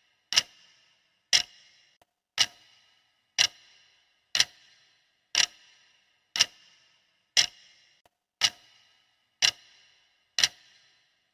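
Clock ticking steadily, one sharp tick a second, each with a brief ringing tail.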